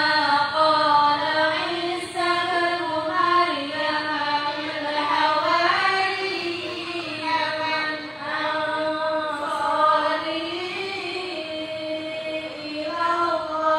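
A group of women chanting together in unison: a slow melody of long held, gently bending notes, with short pauses for breath every few seconds.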